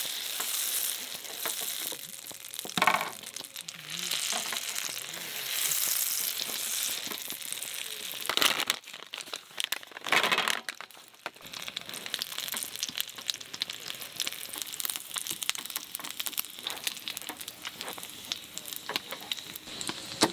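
Food sizzling and crackling in a hot pan, with a few brief louder scraping or clattering noises about three, eight and a half and ten and a half seconds in.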